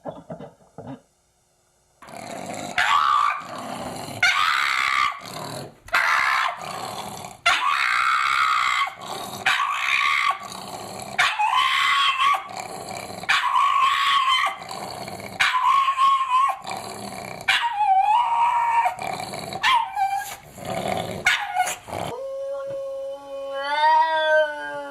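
A dog vocalizing in loud, rough, bark-like calls, repeating about once a second. Near the end comes one long pitched howl that rises and then falls.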